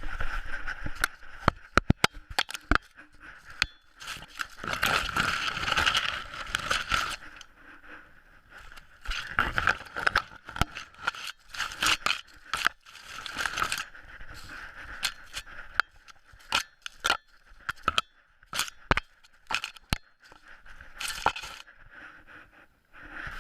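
Rustling and scraping through grass with many sharp clicks, swelling and fading every second or two, typical of walking along a grassy field path.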